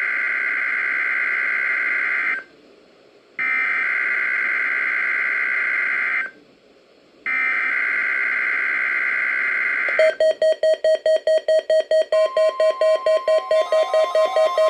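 NOAA Weather Radio SAME header: three harsh, buzzing data bursts of fast-switching tones, each about two and a half seconds long with a second's gap between, the digital code that opens a Required Weekly Test from station KIH28. About ten seconds in, music with a quick, evenly repeated note takes over.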